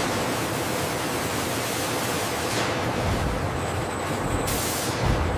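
A steady, even rushing hiss with a low rumble underneath.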